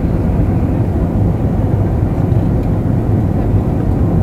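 Steady low rumble of an airliner's jet engines and airflow heard from inside the passenger cabin on the descent to landing.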